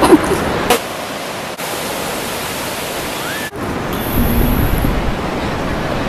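Steady rushing noise of Pacific surf and wind on an open beach, changing abruptly at a few clip cuts. From about four seconds in, a deeper rumble of wind on the microphone joins it.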